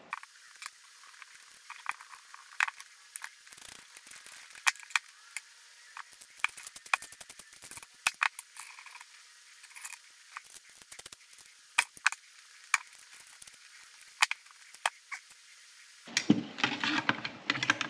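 Scattered light metal clicks and clinks as a steel brake line, its tube nut and a flaring tool are handled on a workbench. Louder, fuller handling noise comes in near the end.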